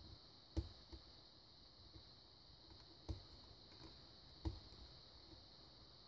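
Small clicks and taps of a thin hook pick and tension wrench working the pin stack of a small brass Yale pin-tumbler padlock. There are three sharper clicks, about half a second in, around three seconds and about four and a half seconds in, with a few fainter ticks between them. This is the sound of single-pin picking, pins being lifted toward the shear line.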